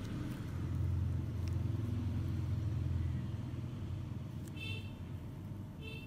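A low rumble that swells for about three seconds and fades, followed near the end by two short high-pitched chirps.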